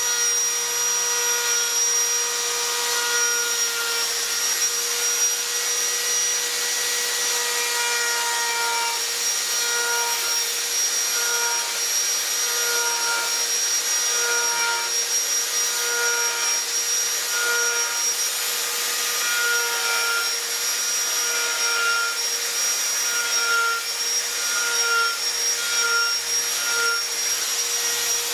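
Electric die grinder with a carving burr running at high speed against wood, a steady high whine over grinding noise, its pitch wavering a little as the burr bites in.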